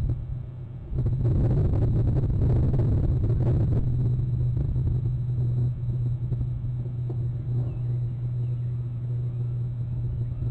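A steady low hum, with a rush of outdoor noise swelling up about a second in and easing off after about three seconds.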